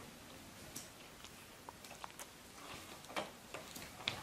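Faint scattered clicks and taps from a baby monkey chewing and handling small plastic bottles on a wooden floor, with a couple of sharper knocks near the end as it scrambles across the bottles.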